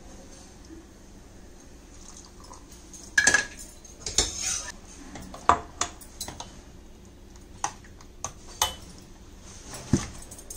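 Steel ladle clinking and scraping against a stainless steel pot as curry is stirred: a few sharp, irregular clinks and short scrapes, starting about three seconds in.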